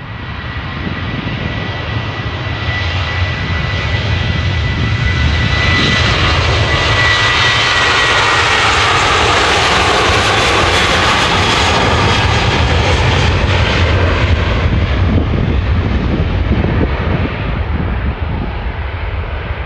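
Jet engines of a KLM Boeing 737 at take-off power on its take-off roll. The noise swells as the jet passes close, with a high fan whine that drops in pitch, then fades into a low rumble as it rolls away.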